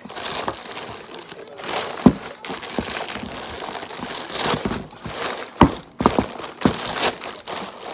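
Plastic packaging crinkling and rustling as the parts of a new drip coffee maker are unwrapped, with several sharp clicks and knocks, the strongest about two seconds in and a cluster past the middle.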